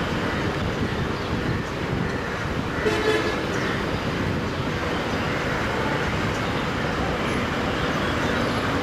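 Steady din of vehicle engines and traffic, with one short horn toot about three seconds in.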